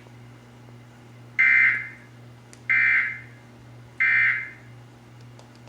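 Three short bursts of Emergency Alert System SAME digital data tones, about a second apart. This is the End of Message code that closes the alert broadcast.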